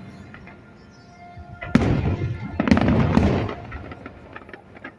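Aerial fireworks bursting: a sharp bang a little under two seconds in, then a longer cluster of booms and crackle about a second later that dies away. Faint music plays underneath.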